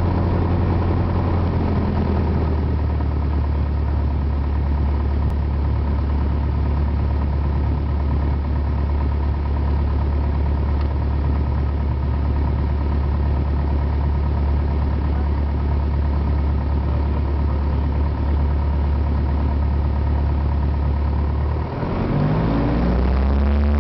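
Single-engine propeller airplane's piston engine running steadily at low taxi power, heard from inside the cockpit. Near the end the note dips and then rises as power comes up for the takeoff roll.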